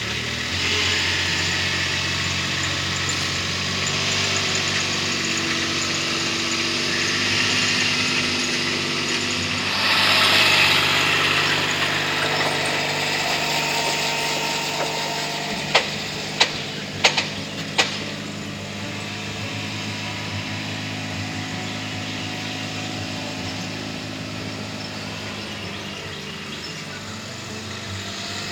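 A vehicle engine running steadily while towing a trailer loaded with rotten barn boards, with four sharp knocks a little past the middle.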